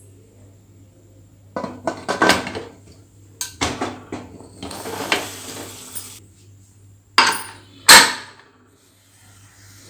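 A metal pressure cooker lid being fitted onto the pot and locked, with clattering and scraping of metal against metal. Near the end come two sharp clinks, the second the loudest, as the whistle weight is set on the vent.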